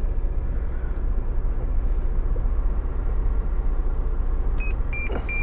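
Steady low rumble of the Holden VE Commodore idling, heard from inside the cabin; near the end, about four short high beeps from the car's radio head unit, which beeps whenever it shows a 'mechanism error' fault.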